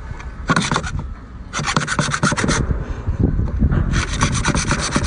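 A cord drawn rapidly back and forth against a large cooked lobster's shell, making fast rasping strokes in three quick spells, the longest near the end.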